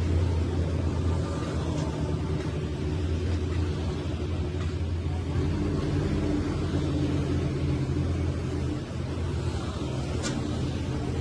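A large engine running steadily with a low, even hum; its note shifts slightly about halfway through. There is one short sharp tick near the end.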